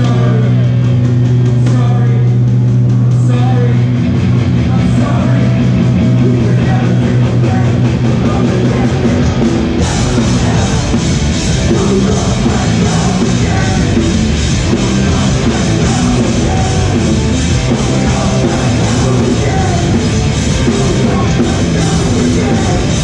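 Hardcore punk band playing live and loud, heard through the PA: a held, ringing low guitar and bass note for about the first ten seconds, then the full band with drums crashes in.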